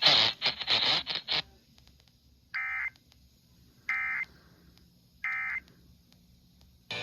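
Three short bursts of Emergency Alert System digital data tones, the SAME end-of-message code, each about a third of a second long and about a second and a half apart. They signal the end of the emergency alert message.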